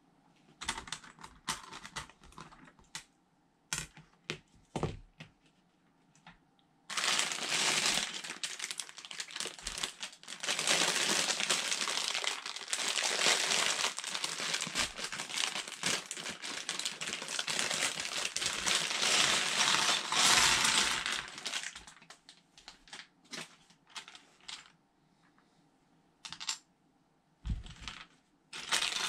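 Small plastic LEGO pieces clicking and clattering on a tabletop, then about fifteen seconds of loud, continuous crinkling of plastic parts bags being opened and emptied, followed by more scattered clicks of pieces being handled.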